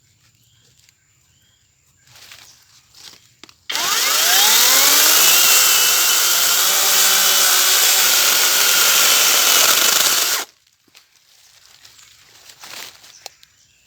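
A 40-volt brushless cordless chainsaw runs in one long burst of about seven seconds. It comes in suddenly a few seconds in with a rising whine as the motor spins up, holds steady, then cuts off abruptly. Faint rustling comes before and after it.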